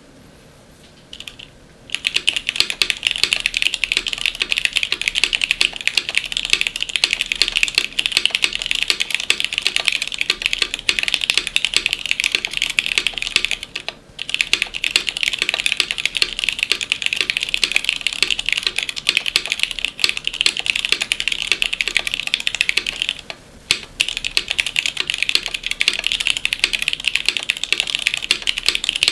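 Fast, continuous typing on a mechanical keyboard with stock, unlubricated Cherry MX Black linear switches, a carbon fibre plate, a PETG 3D-printed case with no foam, and GMK ABS keycaps. The dense run of key clacks starts about two seconds in, with short pauses about halfway through and again near the end.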